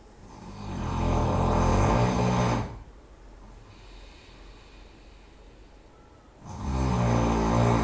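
A person snoring loudly: two long snores of about two seconds each, roughly four seconds apart, each a low buzzing rasp, with quiet breathing between them.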